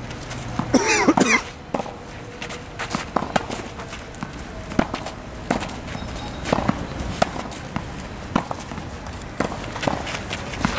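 Tennis balls being struck with rackets and bouncing on the court, an irregular run of sharp knocks and thuds, with footsteps. A brief high-pitched shout comes about a second in.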